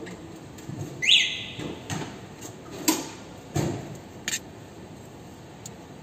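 Handling noise from a flexible-circuit transmission wiring harness being turned in gloved hands: about five short clicks and knocks of plastic connectors, the loudest about a second in along with a short rising squeak.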